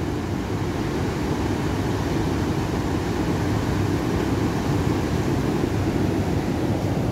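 Rough surf breaking on a sandy beach: a steady, even roar, heaviest in the low end.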